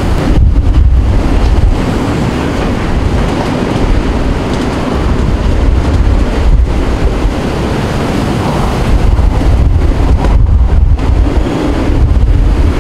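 Hurricane eyewall winds blowing hard and steadily, buffeting the microphone with a heavy low rumble that swells and eases in gusts.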